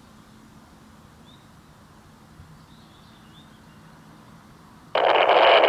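Faint bird chirps over quiet woodland. About five seconds in, the speaker of a Retevis RT24 PMR446 walkie-talkie lets out about a second of loud static hiss: reception failing at 7 km, with no readable voice coming through.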